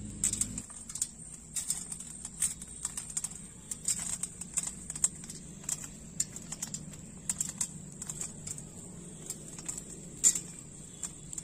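Roasted pearl millet grains being rubbed off the charred ears by hand and pattering onto a steel plate as a run of irregular small clicks, with one sharper click about ten seconds in.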